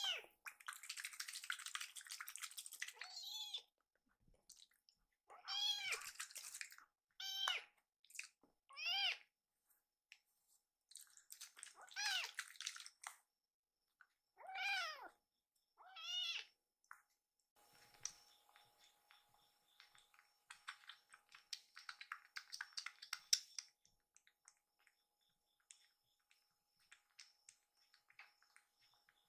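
A young kitten meows repeatedly, each call a short rising-and-falling cry, with a towel rustling in between. After about two-thirds of the way in the meowing stops and gives way to faint wet clicking as the kitten suckles milk from a nursing bottle.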